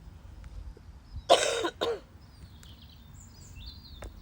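A loud, forceful blast of breath, then a shorter second one, about a second and a half in.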